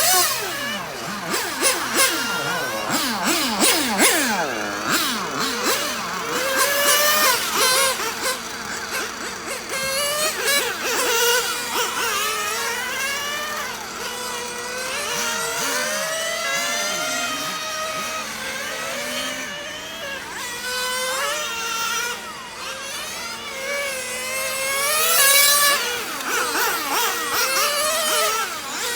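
Several small two-stroke nitro engines of 1/10-scale radio-controlled cars racing round a track, their high-pitched whines overlapping and rising and falling as they rev up on the straights and back off for the corners.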